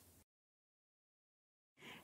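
Near silence: the sound drops out entirely for about a second and a half, with only faint room tone at either edge.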